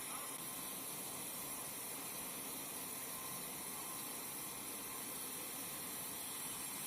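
Steady, even hissing noise with no distinct events.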